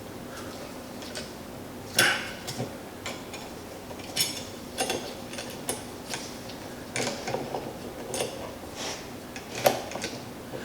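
Irregular metallic clicks and clinks of steel tractor parts being worked by hand, as a pin is pushed against a stiff spring. The loudest clack comes about two seconds in.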